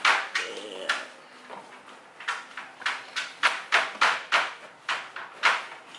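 A whisk knocking and scraping against a plastic mixing bowl while a flour mixture is stirred: a quick, irregular run of sharp clicks, about three a second.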